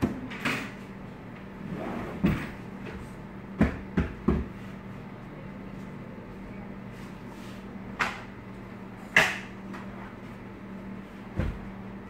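Sofa-cum-bed being opened out: its wooden pull-out base and frame knock and thump into place, about nine separate knocks, the loudest about nine seconds in, over a steady low hum.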